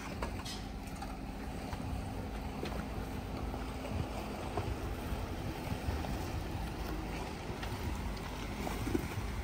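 Off-road 4x4 vehicle moving slowly over a rough track: a steady low engine rumble with scattered small knocks and clicks.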